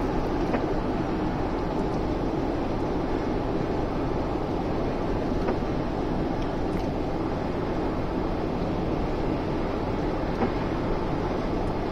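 Steady cabin noise of a Citroën XM driving at motorway speed on a wet road: engine, tyre and wind noise in an even, unbroken rush, with a few faint clicks.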